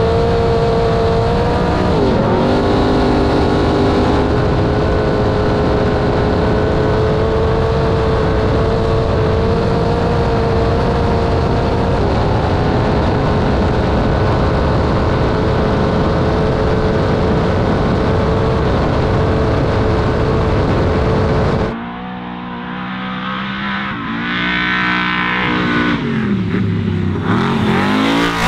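Off-road racing trophy truck engine held at high, steady revs, with a constant rush of tyre and wind noise, heard from on board as the truck drives along a dirt track. About 22 seconds in the sound cuts to the truck heard from outside, its revs rising and falling as it accelerates.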